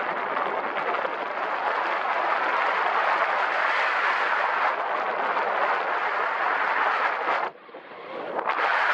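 Steady loud rush of wind over the microphone. It cuts out suddenly for about a second near the end, then builds back.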